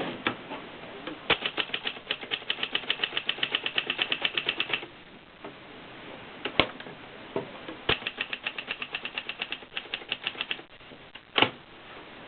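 Adler Tippa S manual portable typewriter being typed on: two runs of rapid keystrokes, about eight a second and a few seconds each, with single louder strikes between them and one loud clack near the end.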